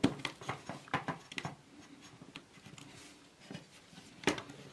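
Sharp clicks and light knocks of plastic and metal parts as the heating element of a portable fan heater is pressed and snapped into its plastic housing, with a few clicks near the start and around a second in, and a louder click near the end.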